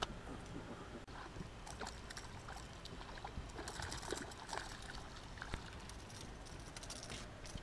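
Faint water sounds: light splashing and trickling, dotted with small clicks and plinks.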